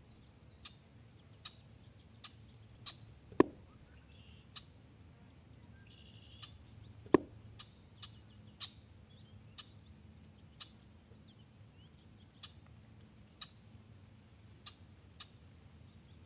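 Scattered sharp clicks and knocks, two of them much louder, over faint bird chirps.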